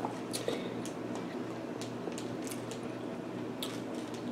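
Irregular light clicks and taps of long fingernails on a smartphone screen as it is scrolled and tapped, over a steady low hum.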